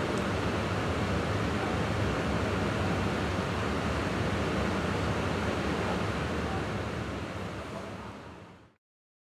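Steady rushing, humming background noise inside a stationary train carriage, fading out to silence near the end.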